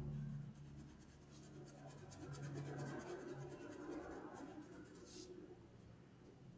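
Faint scratchy strokes of a paintbrush on cotton fabric as paint is dabbed and brushed on, with a brief stronger scrape about five seconds in.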